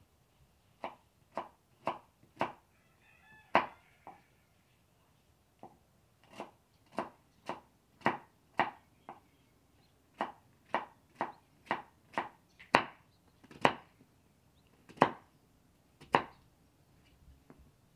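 Knife chopping raw pumpkin on a wooden cutting board: a series of sharp knocks, mostly about two a second, with a few short pauses.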